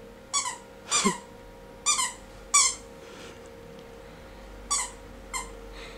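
A puppy biting down on a squeaky toy's squeaker, giving about six short, sharp squeaks: four in the first three seconds, then a pause, then two more near the end.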